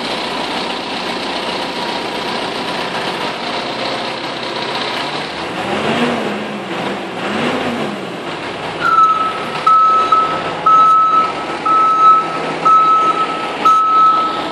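A machine working with a sweeper attachment runs with a steady rushing noise, its pitch rising and falling twice midway. Then, about nine seconds in, a reversing alarm starts beeping about once a second.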